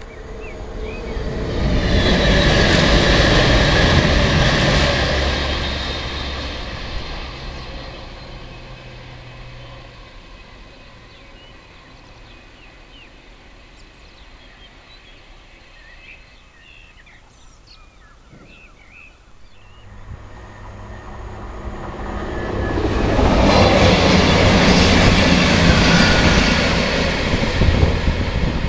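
Class 221 Voyager diesel-electric trains passing at speed, twice. Each time a rush of underfloor diesel engine drone and wheel and track noise swells up and fades away: the first pass comes a couple of seconds in, the second near the end. Birds chirp in the quieter stretch between them.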